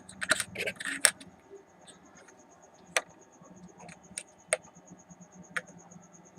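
Scattered sharp clicks and taps of small tools and parts being handled during soldering work on a circuit board, busiest in the first second. Behind them a cricket chirps in a fast, even pulse.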